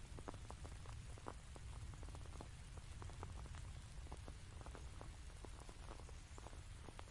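Quiet, sparse raindrops ticking irregularly over a steady low rumble, a few drops a second.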